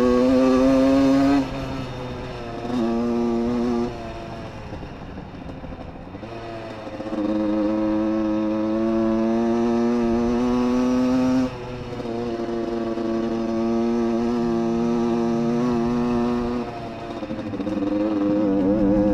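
Small Yamaha dirt bike's single-cylinder engine running while ridden. The revs are held steady, then drop off and pick up again several times as the throttle is eased and reopened.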